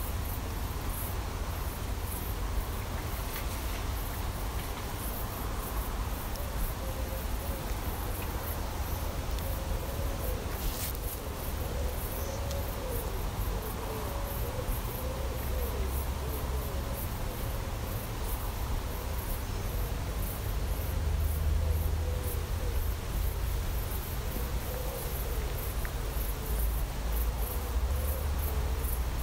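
Summer outdoor ambience with insects: a faint buzz that wavers in pitch comes and goes, with fast faint high ticking, over a steady low rumble.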